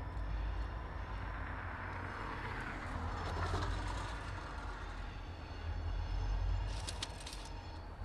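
Freight train with a diesel locomotive moving slowly on the track, a steady deep rumble with a swell of rolling noise midway. A quick cluster of sharp metallic clicks comes about seven seconds in.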